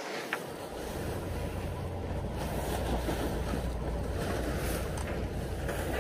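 Wind buffeting the microphone over the steady rush of water along a sailboat's hull while under way.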